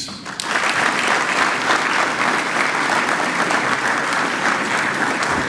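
An audience applauding steadily after an award is announced.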